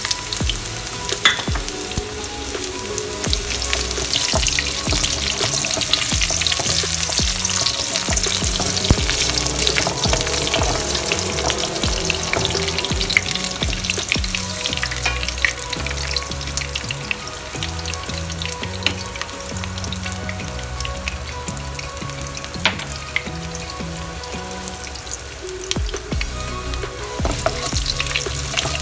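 Sliced ginger sizzling and crackling as it fries in hot oil in a wok, turned now and then with a wooden spatula.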